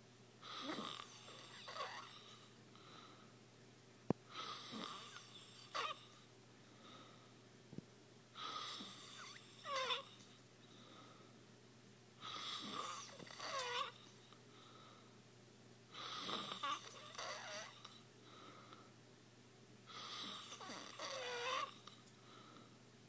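Snoring: about six slow, regular breaths roughly four seconds apart, each with a wheezy whistle near its end.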